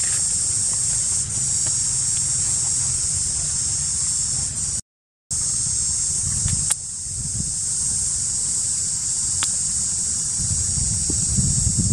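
Steady high-pitched insect chorus droning without a break, over a low rumble. The sound cuts out completely for about half a second around five seconds in.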